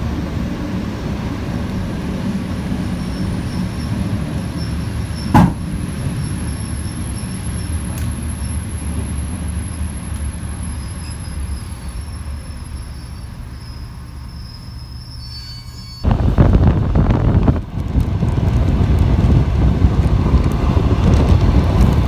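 ET2 electric multiple unit heard from inside the carriage: a steady low running rumble that slowly quietens, with one sharp click about five seconds in. About three-quarters of the way through it switches abruptly to much louder wind and wheel-on-rail noise from an open window of the moving train.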